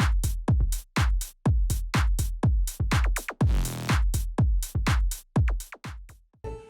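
Electronic drum-machine beat: a fast, even run of punchy kick-drum hits, about four a second, each dropping in pitch, stopping shortly before the end.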